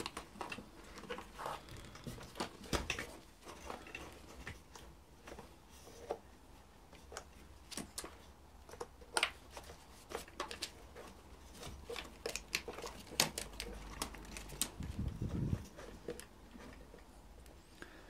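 Scattered clicks, ticks and rustles of a BMW M52TU engine wiring harness and its plastic connectors being handled and pulled loose by hand, with a brief low rumble about fifteen seconds in.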